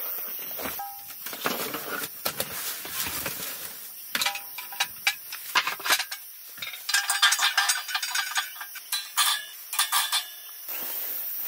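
Small tabletop charcoal grill being set down and its wire grill grate handled: a run of light metallic clinks, rattles and knocks, busiest in the second half.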